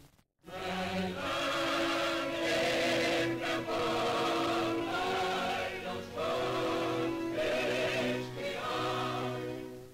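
Choir singing slow, sustained chords in phrases, starting after a short gap about half a second in and breaking off abruptly at the end.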